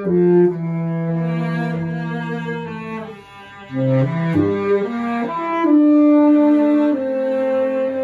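Baritone saxophone and cello playing a slow Holy Week procession march together in long held notes, the cello bowing the low line. The playing drops away briefly about three seconds in, then both come back in.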